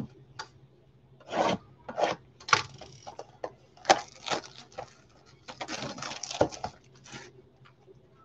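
Cardboard trading-card boxes and cards handled and set down on a wooden table: a run of sharp knocks and clicks with stretches of rustling and scraping.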